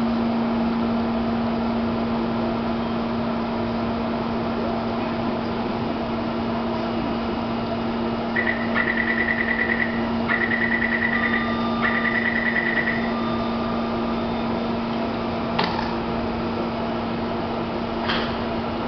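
Taipei Metro C321 train standing at the platform with a steady hum; about eight seconds in its door-closing warning sounds, three runs of rapidly pulsing high beeps over about five seconds, then the doors knock shut, with a second knock near the end.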